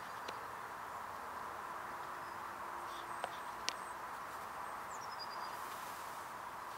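Steady outdoor background hiss with a few sharp clicks and, about five seconds in, one short high falling whistle.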